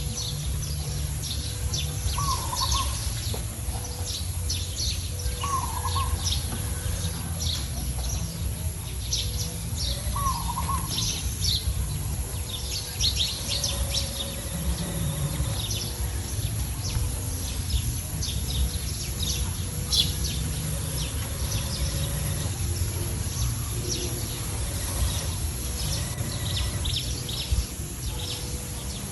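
Birds chirping and calling over a steady low rumble, with a lower, swooping call repeated four times in the first ten seconds or so.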